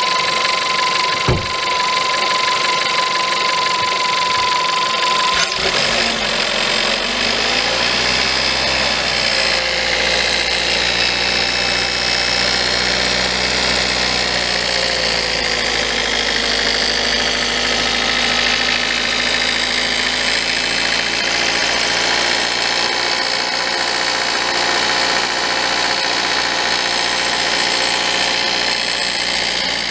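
VW Polo 1.2 TSI 66kW four-cylinder turbo petrol engine running cold with a rattling noise. A steady high tone fades out about five seconds in, a deeper engine note comes in, and the engine speed rises and falls slightly.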